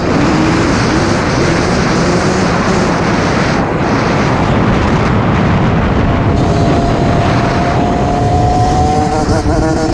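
Dirt bike engine running under way, its pitch climbing slowly, under a heavy rushing noise.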